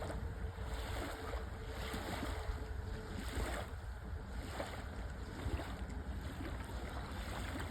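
Steady outdoor background noise with a low rumble, with a faint steady hum during the first three seconds or so.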